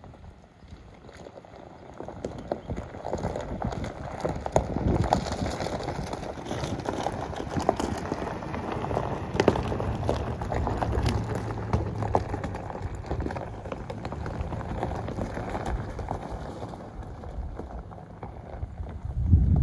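GMC Yukon SUV driving past over loose gravel: tyres crunching and crackling on the stones under a low engine hum. It builds as the SUV approaches, is loudest as it passes about halfway through, and fades as it drives away; a short low rumble of wind on the microphone comes at the very end.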